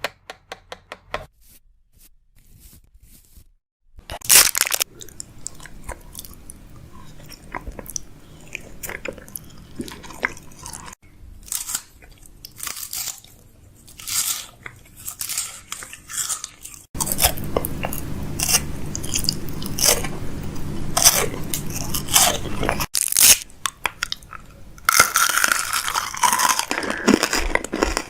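Close-miked, irregular crunching and clicking sounds, in ASMR style, with a sharp burst about four seconds in. A low steady hum runs beneath them through the middle stretch.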